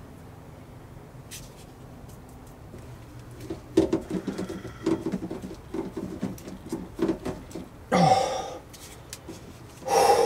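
Thick flexible water-fill hose, its end oiled, being forced and twisted onto the barbed fitting of a water fill inlet. There is a run of short rubbery creaks and squeaks over about four seconds, then two louder scrapes about eight and ten seconds in.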